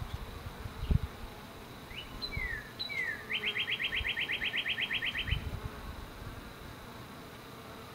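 A songbird singing: a few quick slurred notes, then an even, rapid trill of about ten notes a second lasting about two seconds. A dull low thump about a second in is the loudest sound.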